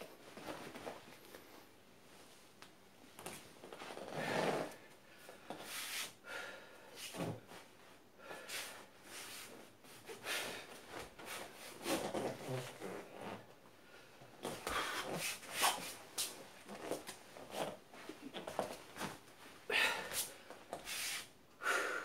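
A man making qigong mouth and breath sounds: sharp, forceful exhalations and hissing puffs in irregular bursts a second or two apart, with a few short whistle-like tones.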